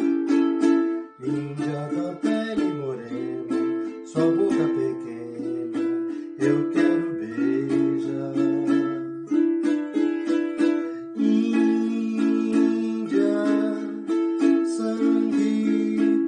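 Ukulele with a body made from a Colomba Pascal cake tin and a mahogany top, close to tenor size with a 38 cm scale, being played in chords that change about once a second.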